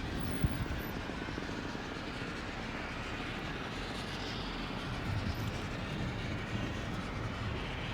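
Steady rushing noise of a car driving, with a single click about half a second in.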